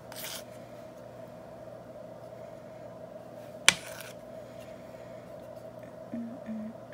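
Buttercream being worked around a cake with a small metal offset spatula: a brief scrape near the start and one sharp click about halfway through, over a steady low hum.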